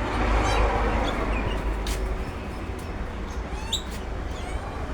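Magpies giving a few short, high chirping calls over a steady low background rumble, with a single sharp click about two seconds in.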